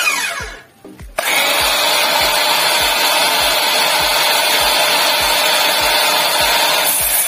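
Ingco CMS2001 cordless miter saw: a short burst of the motor dies away with a falling whine, then about a second in the saw is switched on again and runs steadily at full speed, its sound shifting near the end. Background music with a steady beat plays underneath.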